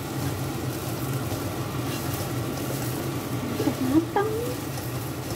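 Papaya leaves stir-frying dry in a nonstick pan, sizzling steadily as a spatula turns and scrapes them, with no water added. A sharp tap of the spatula against the pan sounds about four seconds in.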